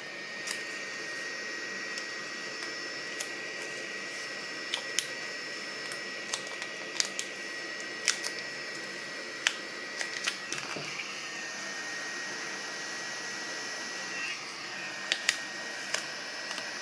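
Sharp, irregular clicks and snaps of a tool prying apart the glued plastic shell of a Nokia BLB-2 phone battery pack.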